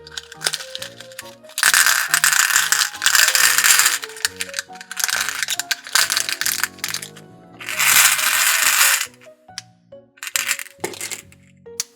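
Little hard candies poured into a plastic surprise egg, rattling against the plastic in several spells. Background music plays underneath.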